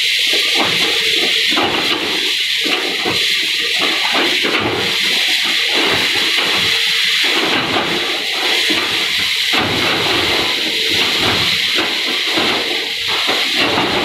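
Cat 320 hydraulic excavator demolishing a concrete and brick building: the diesel runs on while the bucket breaks and drags at the structure, and debris crunches and falls in irregular rushes over a steady high hiss.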